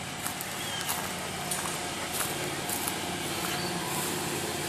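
Miniature ride-on park train pulling into the station: a steady running sound that grows slightly louder, with a string of sharp clicks at uneven spacing.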